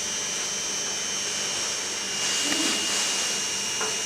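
A steady rushing hiss with a thin, steady high whine over it, and a brief, slightly louder rustle a little past halfway.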